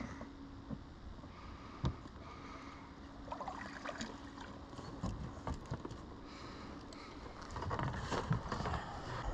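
Handling noises of a wels catfish being hauled into an inflatable boat: scattered knocks and rubbing against the boat, with a sharp knock about two seconds in and busier clattering near the end, over a steady low background.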